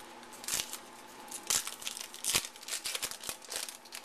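Foil trading-card pack wrapper being torn open and crinkled, a run of sharp rips and crackles, the loudest about a second and a half and two and a half seconds in.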